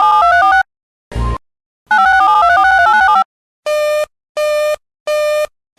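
Electronic emergency-alert tones closing a broadcast bulletin: two spells of rapidly warbling tones, each about a second long, jumping back and forth between two pitches, with a short buzzy blip between them. From a little past halfway, a steady single-pitched beep repeats about every two-thirds of a second.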